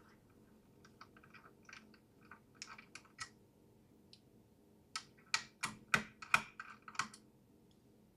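Small clicks and taps from a precision screwdriver and fingers working on the open board of a mini PC. There are faint scattered clicks at first, then a quicker run of about eight louder clicks about five to seven seconds in.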